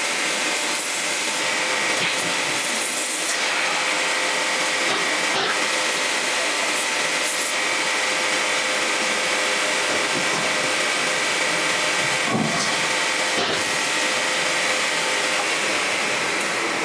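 Steady hiss and hum of workshop machinery, with a few faint clicks.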